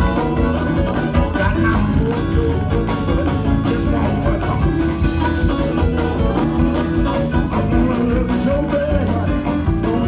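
Live blues band playing, with a keyboard and a steady beat.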